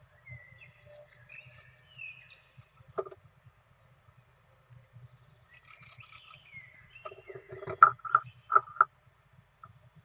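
Great tits in a nest box with newly hatched chicks: high, thin chirping calls in two spells, and sharp knocks, one about three seconds in and a quick run of four or five louder ones near the end.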